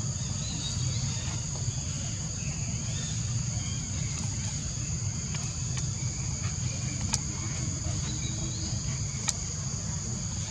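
Steady high-pitched drone of insects, such as crickets or cicadas, over a low rumble, with a couple of sharp clicks late on.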